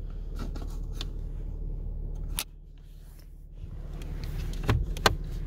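A steady low hum in a car's cabin that cuts out suddenly a little under halfway through and builds back about a second later. Scattered clicks and knocks of something being handled, the loudest two close together near the end.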